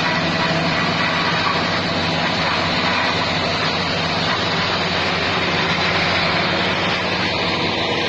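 Grass silage harvester running steadily: an unchanging mechanical noise with a constant engine hum.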